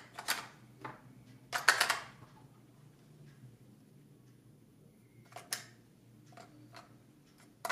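AA batteries being handled and pushed into the plastic battery compartment of a Neewer NW-561 speedlite flash: sharp clicks and rattles, the loudest cluster about two seconds in, another click about halfway through, then a few small clicks near the end.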